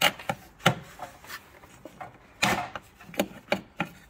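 Gear-selector cables being pushed up through the holes in a short-shifter's metal base by hand: a string of irregular clicks and knocks with rubbing between them, and a louder scrape about two and a half seconds in.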